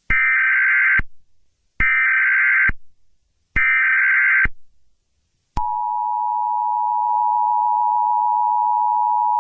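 Emergency Alert System tones. There are three bursts of SAME header data, each about a second long with short gaps between them. Then, about five and a half seconds in, the steady two-tone EAS attention signal starts and holds.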